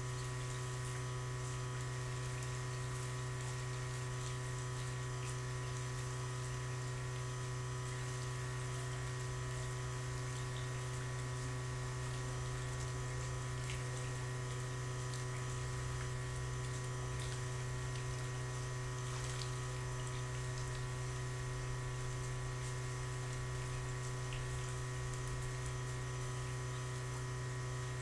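A steady low electric hum with several fainter steady higher tones, unchanging throughout, over faint scattered small splashes of water.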